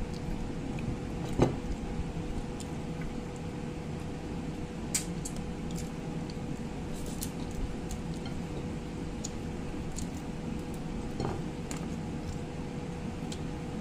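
Scattered light clicks and taps of eating by hand: fingers working rice and crab against a plate, the sharpest click about a second and a half in. A steady low hum with a faint held tone runs underneath.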